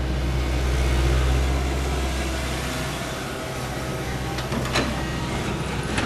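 An engine running steadily with a low, even hum that eases off about three seconds in, followed by a few light knocks.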